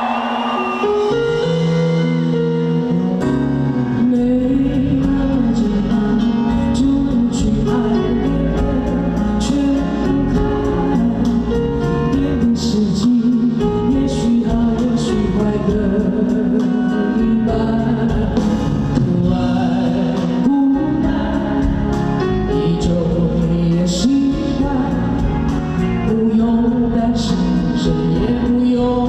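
Live band music with singing: a sung melody over a pop-rock band, with drums and cymbal hits recurring throughout.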